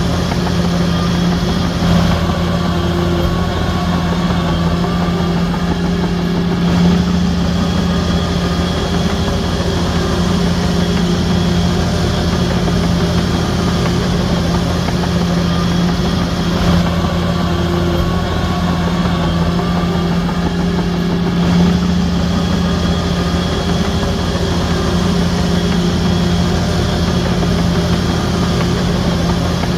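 Shantui DH17C3 crawler bulldozer's diesel engine running steadily, its note shifting slightly every several seconds as it works.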